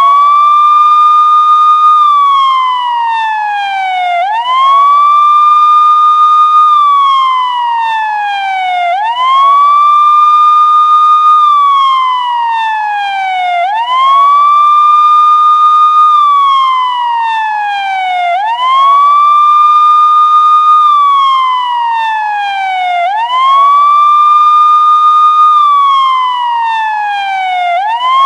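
Police siren wailing in a steady repeating cycle. Each cycle sweeps up quickly, holds its high note for about two seconds, then slides slowly back down, and starts again about every four and a half seconds.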